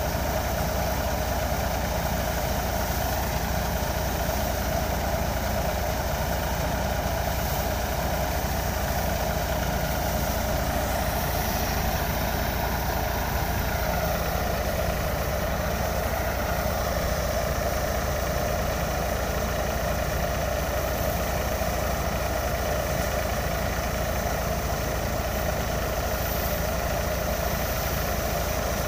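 Tractor's diesel engine running at a steady speed, driving a threshing machine as harvested crop is fed into it; an even, unbroken engine-and-thresher drone.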